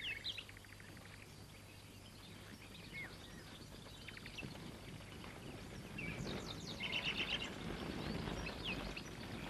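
Birds chirping and trilling in the trees, with a horse approaching along a dirt road: the rumble of its hooves grows louder over the second half.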